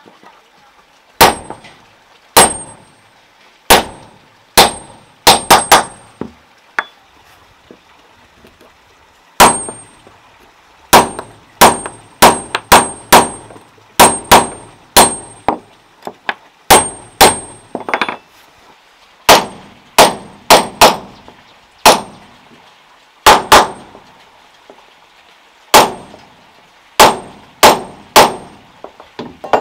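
Hammer striking a metal rod to drive it into wooden floorboards: sharp metallic clangs, each with a brief high ring, about three dozen strikes at an uneven pace, often in quick runs of two to four, with a pause of a few seconds near the start.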